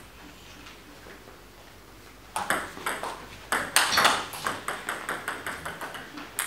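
A table tennis rally: the celluloid-type ball clicking off bats and table in quick succession, starting about two seconds in after a quiet pause and loudest around four seconds in.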